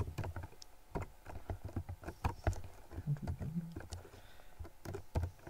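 Computer keyboard typing: irregular keystroke clicks, with a brief low hum a little after three seconds in.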